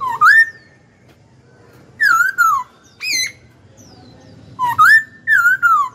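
Caged black-throated laughingthrush singing loud, clear whistled phrases in short bursts, four groups of notes that slide up and down, some rising and some falling.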